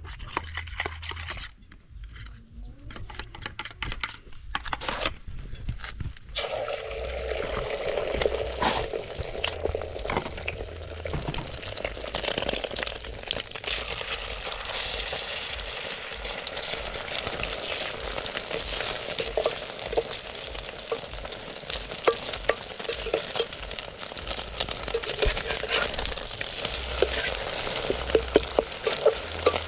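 Food sizzling as it fries in a pan while being stirred, with small clicks and scrapes of the utensil. The sizzle starts suddenly about six seconds in, after a few seconds of scattered knocks.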